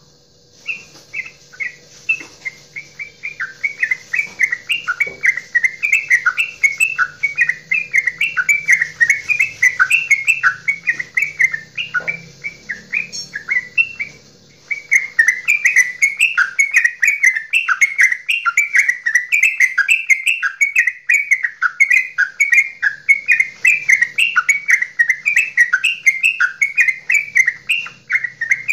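Yellow-vented bulbul (trucukan) singing its long chattering 'goklikan' song: a fast, unbroken run of short, bright, up-and-down notes that stops for a moment about halfway through and then goes on.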